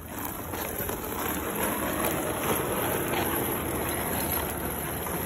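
Heavy steel chain being dragged over concrete and dirt by a dog pulling it, a continuous scraping rattle.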